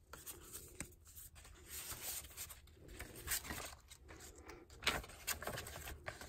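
Light, intermittent rustling and sliding of paper as an envelope is handled and tucked into a paper pocket of a handmade journal, with a sharper tap about five seconds in.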